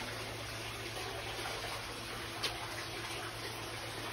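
Steady rushing background noise with a low hum, and one brief click about two and a half seconds in.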